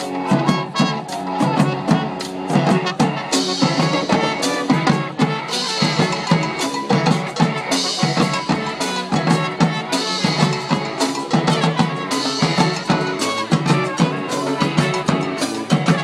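A street brass band playing a tune: horns such as trumpets over a steady, driving drum beat, with stretches of bright, crashing high sound over the beat.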